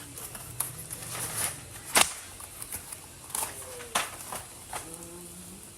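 Plastic keycaps clicking and clattering as they are handled and packed, with light rustling between the clicks. There are several sharp clicks, the loudest about two seconds in and others near three and a half and four seconds.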